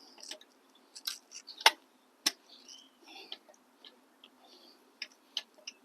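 A handful of sharp metal clicks and taps, with soft rustling between them, as a bolt and mounting hardware are worked into an engine mount. The loudest tap comes about a second and a half in.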